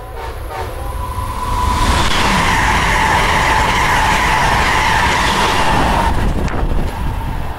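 A train passing close by: loud rail noise with a steady high-pitched whine over a low rumble. It builds over the first two seconds and drops off about six seconds in.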